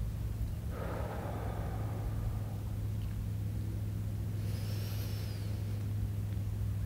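A steady low, engine-like hum, with a soft rush about a second in that fits an exhale, and a short high wavering chirp around five seconds in.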